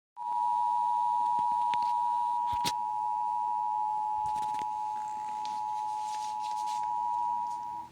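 Emergency Alert System attention signal: the steady two-tone 853 and 960 Hz alarm, starting abruptly out of silence and held for nearly eight seconds before cutting off.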